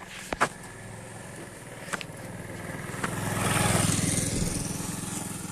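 A motor vehicle's engine running as it passes, growing louder to a peak a little after halfway and then fading. A couple of sharp clicks come near the start.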